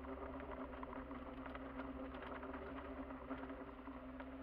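SUV engine running steadily at low revs on a slow descent, heard muffled from inside the cabin, with frequent small irregular clicks and rattles.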